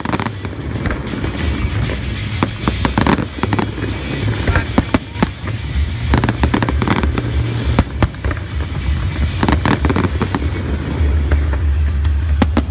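Aerial fireworks shells bursting in a rapid, irregular series of bangs and crackles over a steady low rumble.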